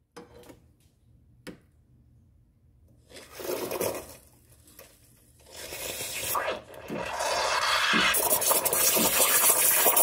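Espresso machine steam wand opened by its knob and hissing into a stainless steel pitcher of milk: a short burst of steam about three seconds in, then from about five and a half seconds a strong, steady hiss with gurgling as it steams and froths the milk.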